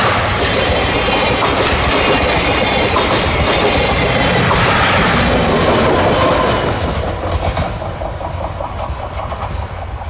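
Blue 12-series passenger coaches rolling past close by, with a heavy rumble and wheels clacking over the rail joints. About six and a half seconds in, the trailing diesel locomotive goes by and the sound drops off, leaving fading clicks as the train moves away.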